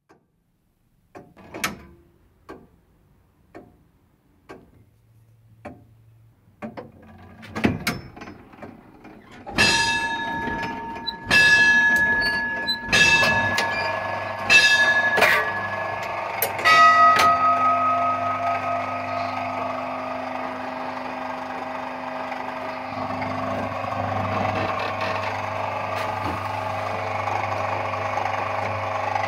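Church tower clock striking. After a few clicks and knocks from the clockwork, a bell is struck four times about a second and a half apart for the quarters, then a lower-pitched bell strikes once for the hour and rings on, over a steady low hum. The quarters followed by the full hour show the striking train working correctly.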